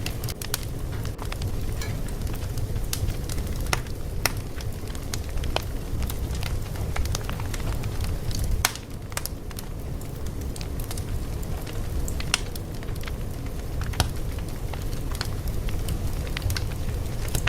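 Crackling fire: a steady low rumble with irregular sharp pops and crackles.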